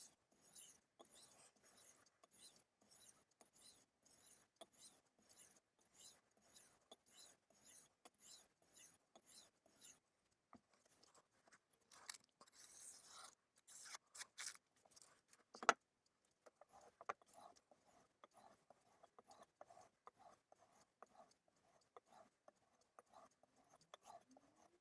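Faint, even strokes of a Shibata Tinker Tank knife's blade drawn edge-trailing across a Suehiro Debado S 1000 whetstone to strop off the burr, about two to three strokes a second. Past the middle come a few louder scrapes and a sharp knock, then a run of quieter strokes.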